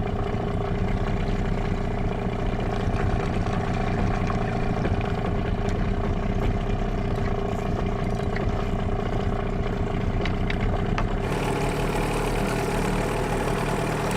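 Boat's outboard motor running steadily at low trolling speed, with the even drone of the engine throughout. About eleven seconds in, the sound changes abruptly and a brighter hiss comes in over the motor.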